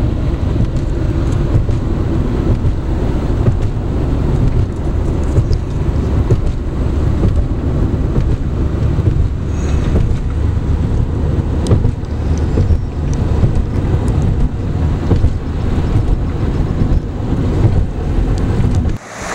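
Car driving at motorway speed, heard from inside: a steady low road rumble with wind noise.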